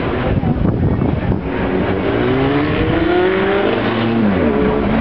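Open-wheel racing car engine, rough at first, then revving up with a climbing pitch from about two seconds in. Near the end the pitch falls sharply as the car goes by.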